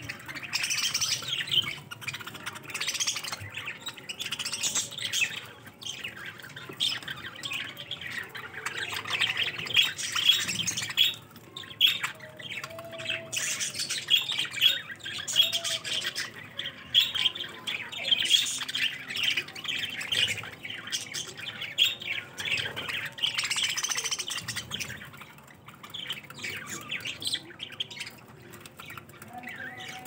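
A flock of budgerigars chattering and squawking in rapid, overlapping high chirps, with brief quieter lulls about a third of the way in and again near the end.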